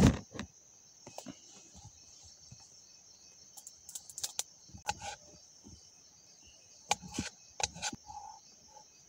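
A knife knocking on a chopping board as green chillies are cut, in a few short clusters of sharp taps about four to five seconds in and again around seven to eight seconds, after a loud thump at the very start. Crickets chirr steadily in the background.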